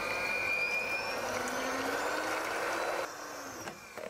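Krups electric hand mixer running at top speed, its beaters whisking egg whites in a plastic bowl to stiff peaks for meringue. A steady motor noise with a high whine that rises slowly in pitch; the sound drops to a lower level about three seconds in.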